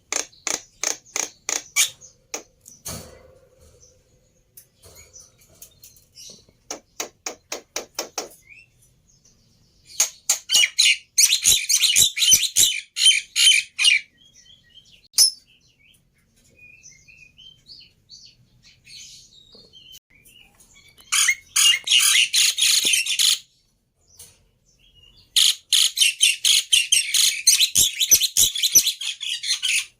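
Jalak (starling) song played as a lure to set caged starlings singing: runs of rapid repeated notes, then several long, loud bursts of dense chattering song.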